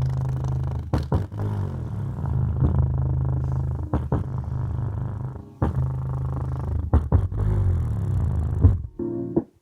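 Small Samsung subwoofers playing bass-heavy music: deep, sustained bass notes punctuated by sharp beats. The bass drops out near the end.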